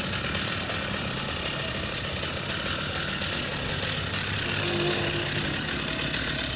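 Chainsaw engine running steadily.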